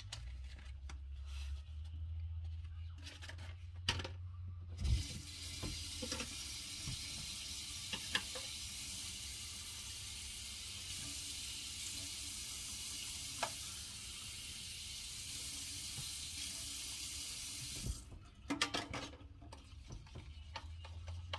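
Kitchen tap running steadily, filling a cup with water; it comes on about five seconds in and is shut off a few seconds before the end. A few sharp knocks and clicks of dishes come before and after it.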